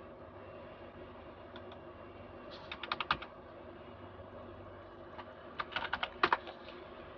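Computer keyboard keys being typed in two short bursts, one about two and a half seconds in and another about five and a half seconds in, over a faint steady hum.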